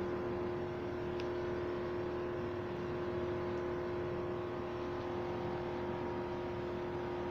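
Steady machine hum with a constant mid-pitched tone and fainter overtones, unchanging throughout.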